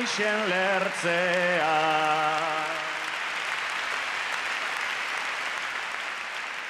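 A man sings the last line of an improvised Basque bertso unaccompanied, ending on a long held note about three seconds in. A large arena crowd breaks into applause partway through the line, and it carries on after the singing stops, slowly dying down.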